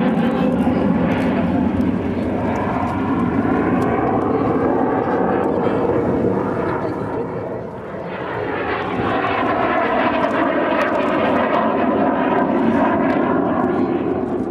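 Kawasaki T-4 jet trainer's twin turbofan engines running hard as it flies aerobatic manoeuvres overhead, a continuous jet roar that dips briefly about halfway through and swells again.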